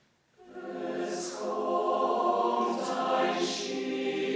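Mixed chamber choir of men's and women's voices singing together, coming in about half a second in and holding sustained chords.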